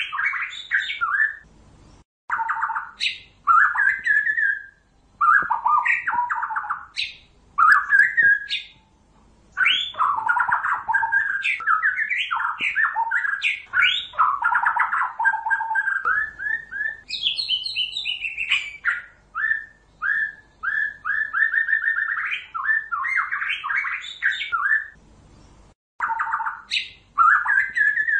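White-rumped shama singing a decoy song: runs of quickly repeated and gliding notes, broken by short pauses.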